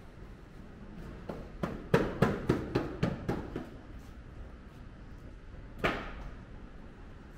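A quick run of about eight sharp knocks, a few a second, with one more knock a couple of seconds later.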